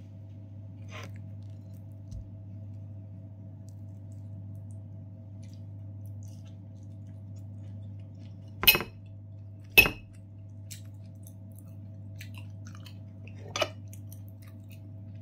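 Metal fork clinking against a plate: two sharp clinks about a second apart midway, and a lighter one near the end, with quiet chewing between. A steady low hum runs underneath.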